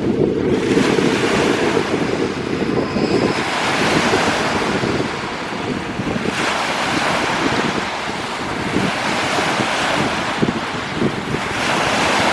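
Lake Superior waves breaking in a gale, surging in one after another every few seconds. Strong wind buffets the microphone, heaviest in the first few seconds.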